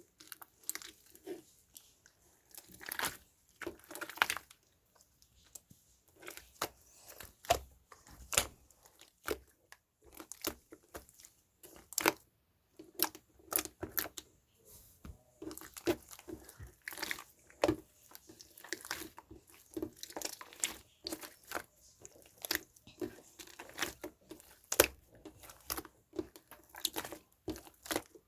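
Hands handling paper and plastic craft items: irregular rustling, crinkling and tearing with many small taps and clicks.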